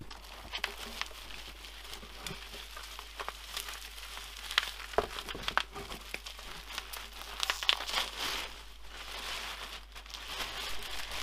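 Clear plastic packing wrap crinkling and rustling as hands rummage through a cardboard shipping box, with scattered sharper crackles throughout.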